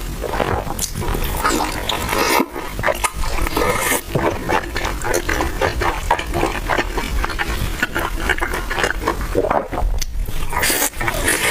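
Close-miked chewing of crispy fried buns: steady eating sounds made of many small crunches and clicks.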